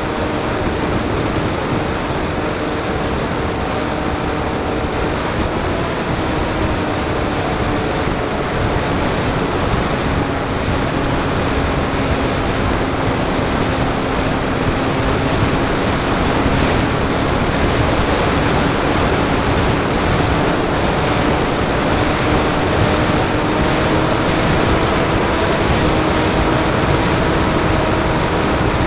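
Wind rushing over the onboard camera of a Bixler 3 RC airplane in flight, with the steady hum of its electric motor and propeller underneath. The motor's pitch sags a little about midway and climbs again toward the end.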